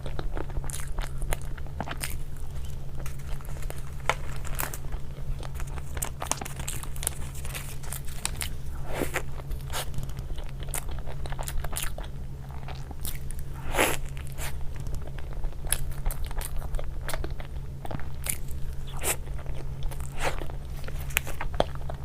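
Close-up crunching and chewing of crisp food: irregular sharp crunches, with a steady low hum underneath.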